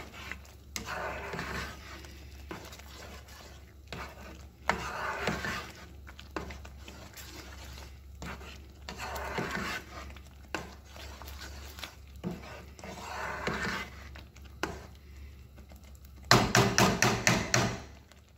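A spatula stirring a thick, bubbling sauce in a stainless steel skillet: soft scraping strokes now and then, with light knocks against the pan. Near the end a quick, louder run of about seven knocks for under two seconds.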